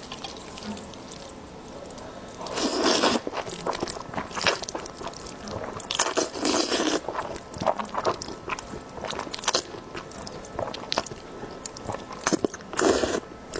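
Close-miked food-handling sounds: a run of small crunchy clicks and scrapes, with three longer rasping scrapes about three, six and a half and thirteen seconds in.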